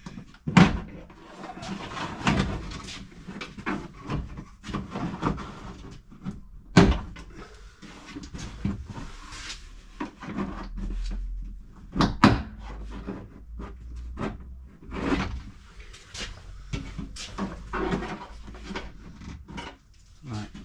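Plastic trim tool prying at a car tailgate's inner plastic trim panel: repeated clicks, scrapes and knocks of plastic on plastic as the panel and its retaining clips are worked loose, with a few sharp loud snaps, the loudest about seven and twelve seconds in.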